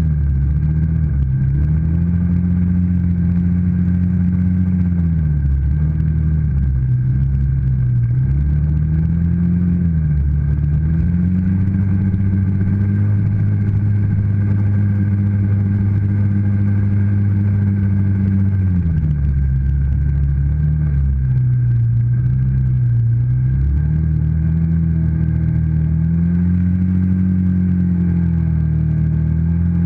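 ATV engine running under way, revving up and easing off again and again with the throttle; in the middle it holds a steady higher speed for several seconds, then drops back to a low, near-idle pitch for a couple of seconds before picking up again.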